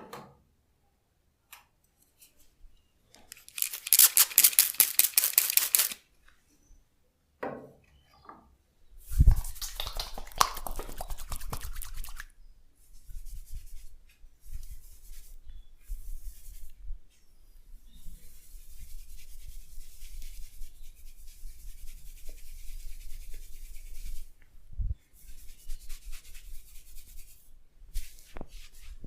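Massage hands rubbing briskly over hair and skin: two loud spells of fast, scratchy strokes, then a longer stretch of softer, hissy rubbing in short bouts, with an occasional dull thump.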